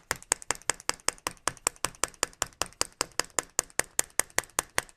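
Rapid, even tapping, about nine strokes a second, of a plastic tool handle on the end of a wooden dowel set against the sling loop of a Mauser M48 barrel band, driving the band forward along the stock.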